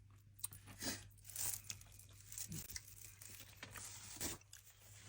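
Faint eating sounds at a dinner table: a few scattered crunches and small clicks, about five in all, over a low steady hum.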